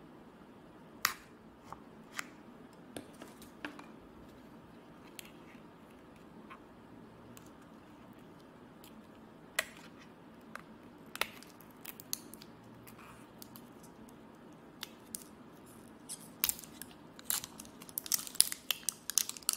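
A roll of washi tape being handled and its end picked at and peeled back, giving scattered small clicks and ticks. The clicks come thicker and louder near the end as the tape is pulled off the roll.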